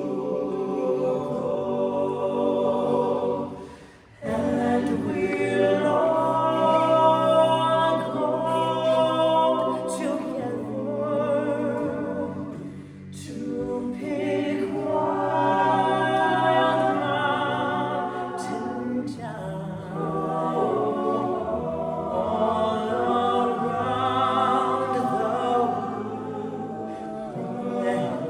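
Male a cappella group singing a slow folk ballad in close harmony, a lead voice carried over sustained backing chords with no instruments. The voices break off briefly about four seconds in, then come back in together.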